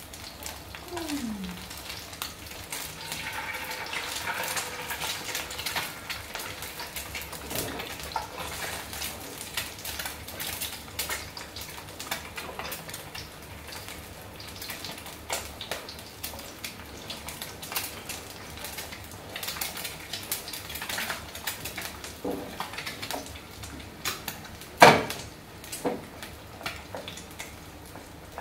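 Duck eggs frying in oil in a non-stick pan: a steady sizzle with chopsticks clicking and scraping against the pan, and one sharp knock near the end.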